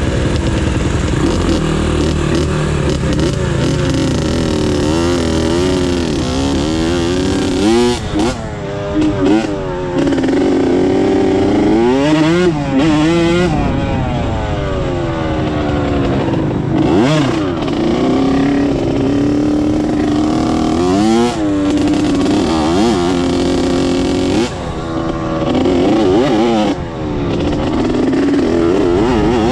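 Dirt bike engine at high revs, its pitch climbing and falling again and again as the rider accelerates, shifts and backs off, with several quick drops and flares of revs.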